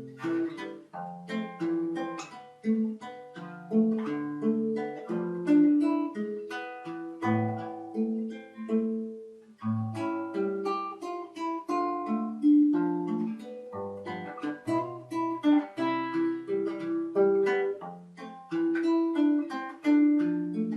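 Solo guitar played with plucked notes: a melody line over bass notes, with each note dying away after it is struck.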